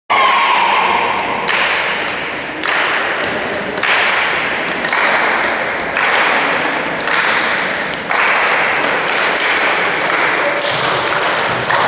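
Many people clapping, a dense applause that swells in an even rhythm about once a second.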